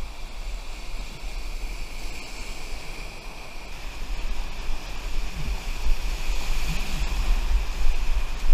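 Whitewater rapids rushing and churning around a stand-up paddleboard, a steady roar of water with a heavy low rumble of wind and water buffeting on the microphone.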